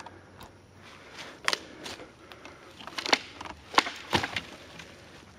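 Footsteps on the forest floor: dry twigs snapping and leaf litter crunching underfoot in a few irregular sharp cracks, the loudest about a second and a half in and again between three and four seconds in.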